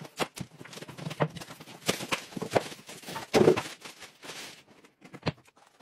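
Unboxing noise: cardboard scraping and rustling with irregular knocks as a folded walking-pad treadmill is pulled out of its box.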